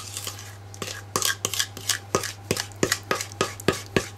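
A kitchen utensil scraping and tapping against a mixing bowl, about three sharp knocks a second, as thick chocolate cake batter is scraped out into a cake tin. A steady low hum runs underneath.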